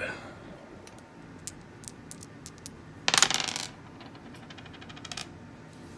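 A few faint clicks, then two six-sided dice thrown onto a wooden desk about three seconds in, clattering loudly and tumbling to rest with a run of smaller clicks.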